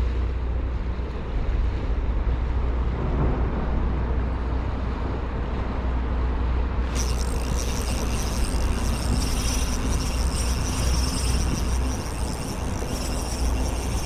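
Steady low rumble of road traffic on a highway bridge overhead. About halfway through, a steady high hiss joins it.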